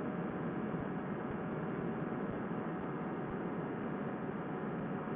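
Steady, even drone of a paramotor trike in flight: the Fresh Breeze Monster engine and the rush of air, heard dull and cut off at the top through a helmet headset microphone.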